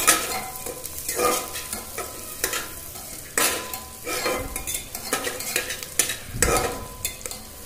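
A metal spatula stirring and scraping onions frying in butter in a pressure cooker. It makes irregular scrapes against the pot's metal over a steady frying sizzle, with the heaviest strokes about three and a half and six and a half seconds in.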